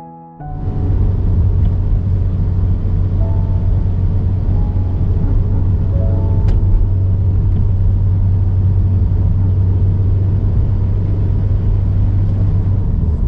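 Engine and road noise of a moving car heard from inside the cabin: a steady low rumble that starts about half a second in.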